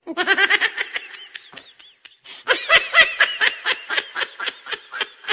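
Laughter sound effect: rapid 'ha-ha' pulses of a laughing voice in two bouts, the first dying away after about two seconds and a second, louder bout starting about half a second later.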